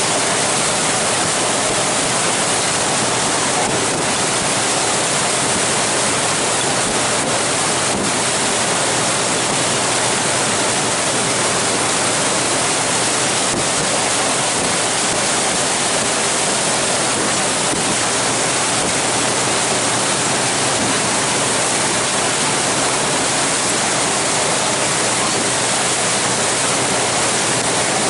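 Steady rushing hiss of water streaming past the hull of a moving glacier cruise boat.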